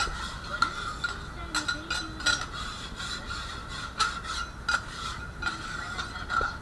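Metal spatulas scraping and tapping on a hot steel griddle as an okonomiyaki is worked, with irregular clicks and scrapes about twice a second over a steady background tone.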